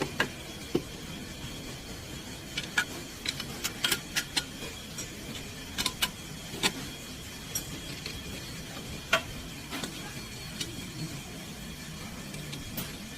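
A car running with a steady low hum, with scattered, irregular sharp clicks and light knocks over it.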